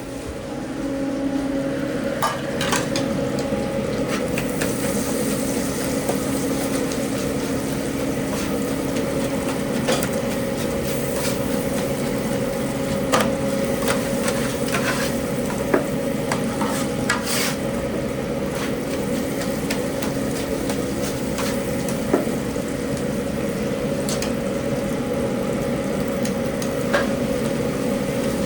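Commercial kitchen cooking: food sizzling and frying over a steady hum that sets in about a second in, with occasional sharp clinks of utensils and pans.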